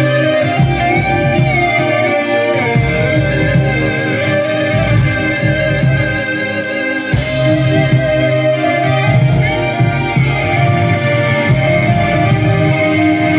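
Live heavy metal band playing an instrumental passage: a wavering lead melody over bass and a steady drum beat.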